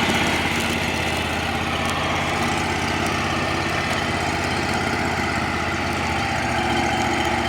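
Backhoe engine running steadily at a low, even speed, its note deepening slightly about six seconds in.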